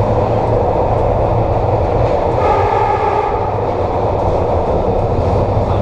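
SEPTA K-Car light rail vehicle under way, heard from inside the car: a steady, loud running rumble with rail noise. A brief pitched tone rises over it about two and a half seconds in and fades about a second later.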